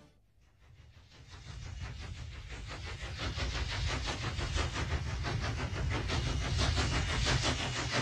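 Train with freight wagons running past, a fast, even chugging clatter over a low rumble. It fades up from near silence over the first two seconds or so.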